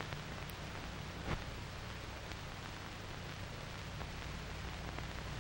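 Steady hiss and low hum of an old film soundtrack between narration lines, with one faint click a little over a second in.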